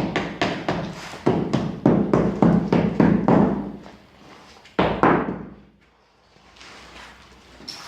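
A rapid series of knocks on wood, about three to four a second, dying away after about four seconds, then one heavier knock about five seconds in.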